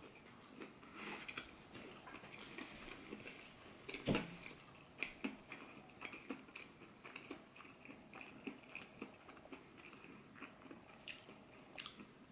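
A person chewing a mouthful of breaded boneless chicken wing with the mouth closed: faint, scattered small clicks and wet mouth sounds, with one louder click about four seconds in.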